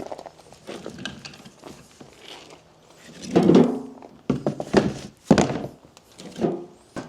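Firewood logs knocking as they are dropped and stacked into a plastic mortar tub: a run of irregular wooden thunks, with the heaviest knocks coming in the second half.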